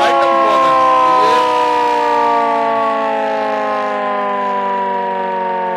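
Ship's electric motor siren sounding one continuous wail whose pitch slowly falls, a little quieter near the end.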